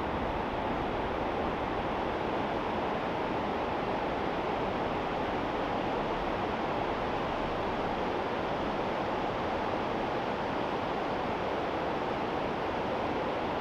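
Steady rushing of the James River's water flowing over rocks, an even hiss-like roar with no breaks.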